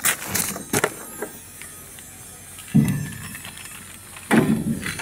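Plastic bag crinkling and rustling as it is handled, with a few short crackles in the first second. There is a dull bump about three seconds in and another near the end.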